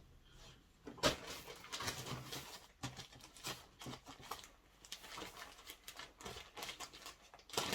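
Plastic packaging crinkling and rustling as garments are unwrapped and handled, in quick irregular crackles from about a second in.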